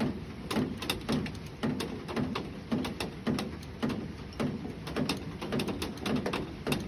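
Raindrops tapping on a hard surface: many sharp, irregular ticks, several a second, each landing with a short, low, hollow knock.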